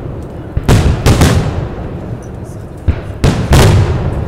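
Aerial firework shells bursting: two loud bangs under a second and a half in, then a lighter pop and two more bangs near the end, each trailing off as it fades.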